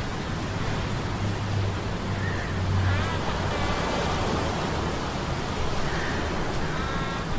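Steady rushing surf of a sea storm over a low, steady hum of metal gears, with short high whining tones about three seconds in and again near the end.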